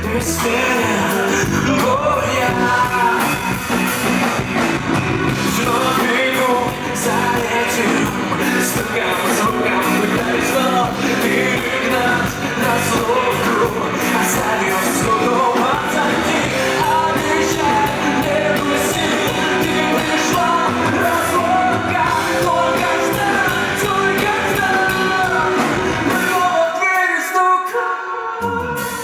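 A live rock song: a singer over a full band, loud and continuous. Near the end the low end drops out for about two seconds, then comes back in.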